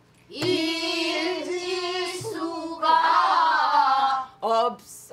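A woman singing pansori, holding long, wavering, ornamented notes in a strong, full voice, with two low strokes on a buk barrel drum about half a second in and about two seconds in.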